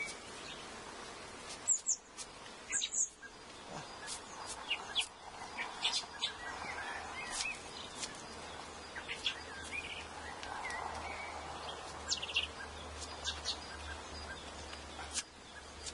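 Small birds chirping again and again over a steady outdoor background. Underneath is the hum of honeybees around an open hive.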